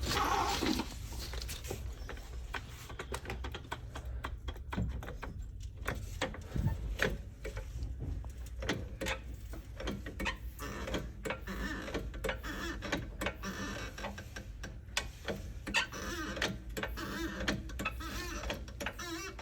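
Floor jack being worked to raise the car: a long run of irregular metallic clicks and knocks over a steady low hum.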